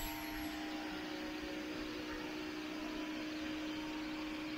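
Steady mechanical hum with an even hiss and one constant low tone, unchanging throughout.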